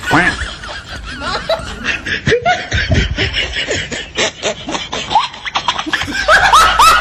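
Laughter: short laughs one after another, louder near the start and again near the end.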